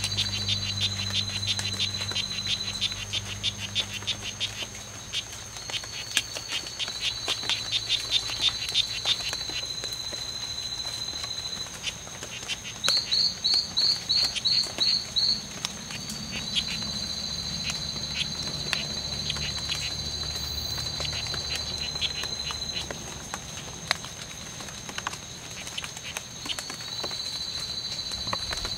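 Strawberry poison frogs calling: repeated trains of rapid, buzzing chirps, each a few seconds long, with a louder series of about eight sharp chirps near the middle. A steady high insect whine runs underneath.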